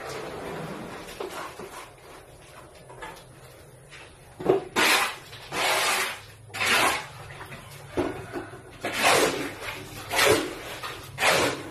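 Repeated short scraping strokes of a metal tool in a metal basin, starting about a third of the way in and coming roughly once a second, as cement mortar is scooped.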